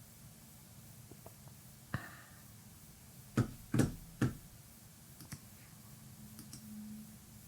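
A few sharp clicks and knocks over a faint low hum, with three louder ones close together about three and a half seconds in.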